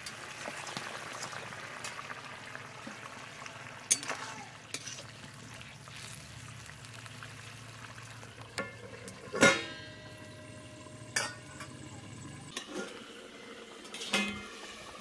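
Taro and fish-head curry simmering and bubbling in a steel kadai while a long steel ladle stirs and scrapes it. Several sharp metal clanks come as the steel lid is handled and set on the pan; the loudest, about nine seconds in, rings briefly.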